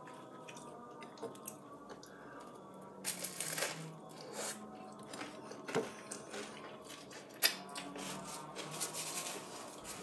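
Someone eating a jam-topped crumpet: soft bites and chewing, with small clicks and knocks of handling at the plate. One sharp tap about seven and a half seconds in is the loudest sound.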